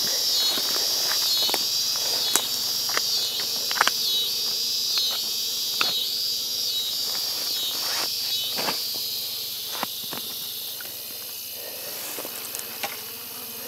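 A chorus of evening insects calling in a steady pulsing rhythm, about one and a half pulses a second, fading after about eight seconds. Scattered rustles and clicks of movement in the grass sound over it.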